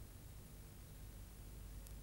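Near silence: faint steady hiss with a low hum underneath, as from a blank recording.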